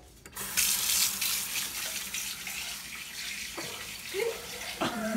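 Kitchen tap running into a sink: a steady rush of water that starts about a third of a second in.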